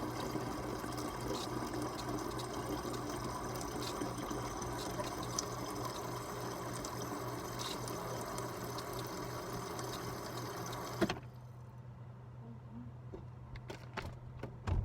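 Water running steadily as it fills in a refrigerator, over a low hum. The flow cuts off sharply about eleven seconds in, leaving the hum and a few clicks.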